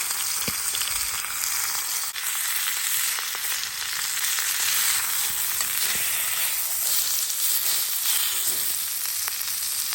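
Food frying in a hot pan: a steady sizzle with a few faint ticks.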